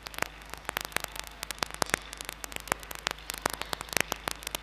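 Electrical static crackling in irregular clicks, several a second, over a steady mains hum in the sound system.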